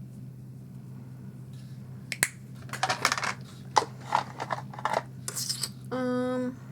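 A makeup brush scratching and tapping in a setting-powder compact, with a sharp click and then a run of short brushy scrapes and taps. Near the end comes a short steady pitched tone of about half a second.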